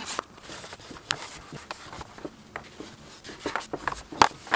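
Paper towel rubbing and wiping a plastic drawer organiser, with scattered small clicks and knocks; the sharpest knock comes near the end.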